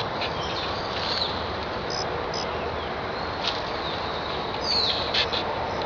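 Birds chirping now and then, a few short calls scattered through, over a steady background hiss of outdoor ambience.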